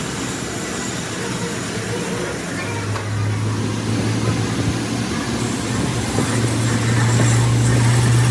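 An engine running steadily with a low hum, which grows stronger about two and a half seconds in and is loudest near the end.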